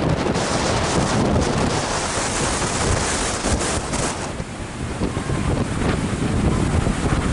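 Wind buffeting hard on the microphone over the rushing roar of a small jet trainer's engine as it flies past, the high-pitched part of the roar growing louder a couple of seconds in and easing off after about four seconds.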